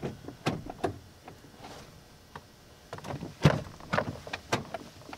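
Honda Ridgeline's plastic interior door panel knocking and clicking against the door as it is fitted back on: a few sharp taps, a short lull, then a cluster of knocks with the loudest about three and a half seconds in.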